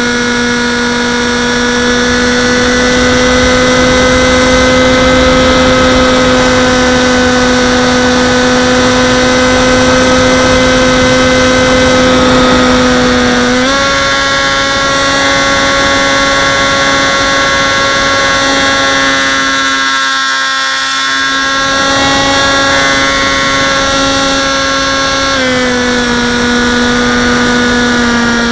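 Dynam Hawk Sky RC plane's electric brushless motor and propeller whining at a steady pitch, with wind rushing past the onboard camera. The pitch steps up about halfway through and steps back down near the end.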